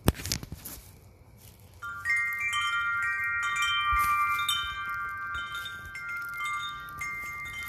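A sharp knock right at the start, then Woodstock tuned metal-tube wind chimes sounding from about two seconds in: several high, bell-like tones struck again and again, overlapping and ringing on.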